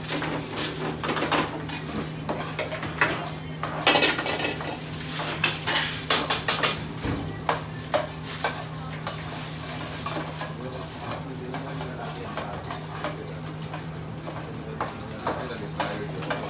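Metal spoons and a ladle scraping, tapping and clattering against frying pans, a wok and a stockpot on a gas range as food is stirred, with frying food sizzling. The clatter comes in uneven clusters, loudest about four seconds in and again around six to seven seconds, over a steady low hum.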